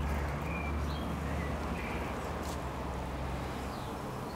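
Water showering from the rose of a plastic watering can onto a freshly planted tub, a steady hiss that slowly fades, as the new plants are watered in.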